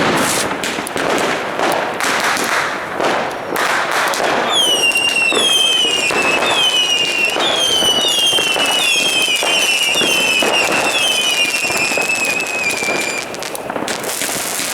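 New Year's Eve fireworks: a steady barrage of bangs and crackling, joined from about a third of the way in by a string of overlapping whistles, each sliding downward in pitch, that stop shortly before the end.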